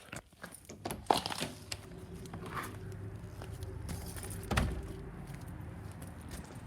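Knocks and rustling from someone moving about and handling things, the sharpest knocks about a second in and about four and a half seconds in, over a low steady hum.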